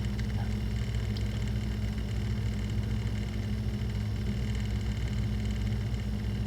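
A steady low mechanical hum, even and unbroken.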